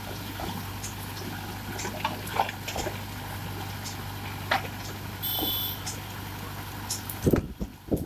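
Mahindra tractor's diesel engine running steadily while the AgriBULL backhoe bucket digs into broken brick and concrete rubble, with scattered knocks and clatter of stones. A brief high-pitched squeal comes about five seconds in, and near the end the steady hum drops out and a few heavy low thumps follow.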